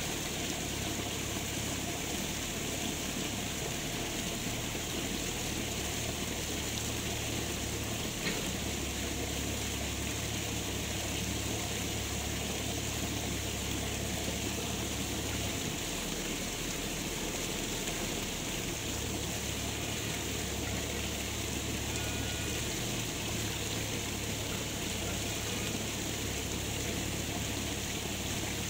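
Steady rushing noise of flowing river water, with a low rumble that shifts in level every few seconds and a single faint click about eight seconds in.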